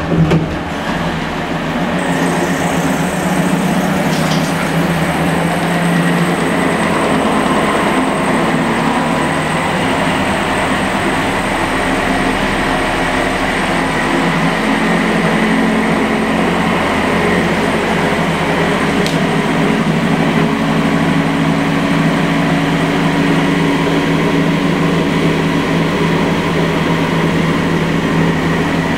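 Zanussi Super Jetsystem front-loading washing machine in its intermediate spin: the motor and drum come up to speed suddenly and run with a steady hum and whine.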